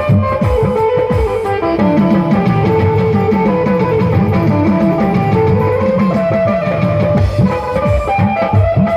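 Instrumental passage of a Bhojpuri song: a plucked-string melody over a beat of low drum strikes that slide down in pitch, with a quick run of low notes in the middle.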